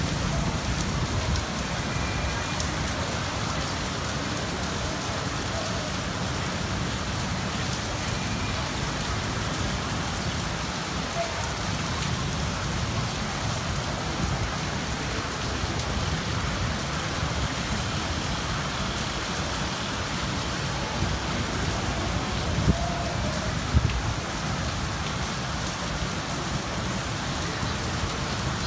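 Steady rain falling across rooftops, an even hiss with a low rumble underneath. Two brief sharp taps come about a second apart late on.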